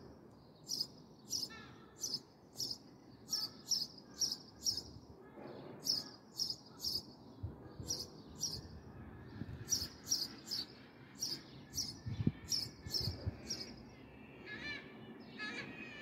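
House sparrows chirping: short, sharp chirps repeated two to three times a second in runs, with brief breaks. Near the end a lower, warbling call joins in.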